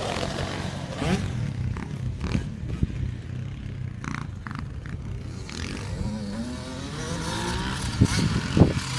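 Small 65cc dirt bike engines running as the bikes ride away around the track, with a rising rev about two-thirds of the way in. Two sharp knocks near the end.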